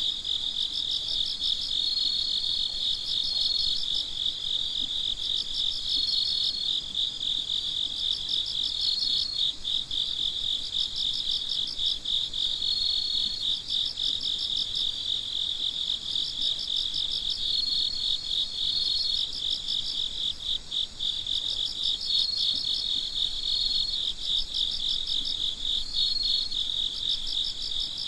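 Night chorus of several crickets chirping at once in a dense, fast pulsing, with a higher steady trill breaking in for a second or two every few seconds.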